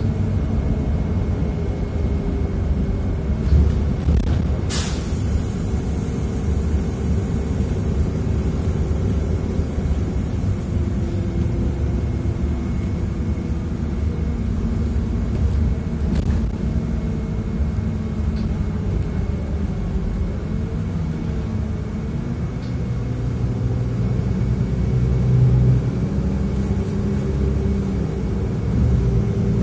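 City bus in motion heard from inside the passenger cabin: steady engine drone and road rumble. A sharp click sounds about five seconds in, and the engine swells briefly near the end.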